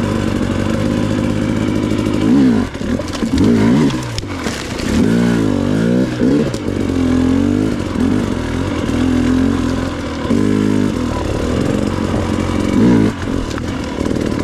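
Two-stroke KTM XC-W TPI dirt bike engine ridden at low speed, the throttle blipped over and over so the revs rise and fall every second or two over a steady low running note.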